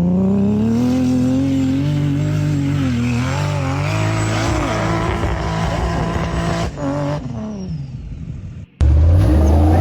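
An off-road 4x4's engine running and revving under load, its pitch rising and falling. Near the end it cuts off suddenly for an instant, and a louder engine revs hard.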